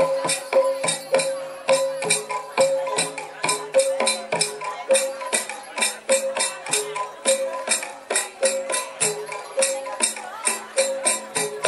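Javanese gamelan music for a jathilan horse dance: a fast, even jingling beat of about three strokes a second under a repeating cycle of metallophone notes.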